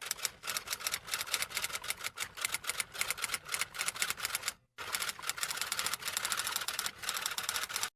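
Rapid typewriter key clicks, like a typing sound effect, in two runs with a brief stop a little past halfway.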